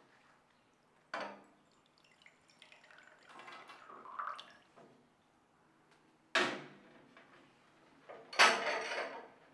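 Coffee poured from a silver coffee pot into a cup, with metal and china clinking against a silver tray: a sharp clink about a second in, a short trickle of pouring, then a ringing clink and a louder clatter near the end.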